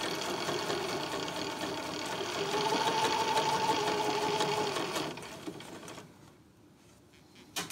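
Computerised domestic sewing machine stitching a seam, running steadily with its motor hum growing a little louder midway, then slowing and stopping about five to six seconds in. A single sharp click near the end.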